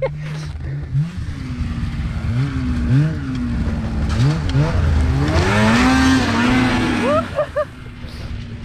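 Snowmobile engine idling with several quick throttle blips, then a longer rev about halfway through that rises and falls back to idle.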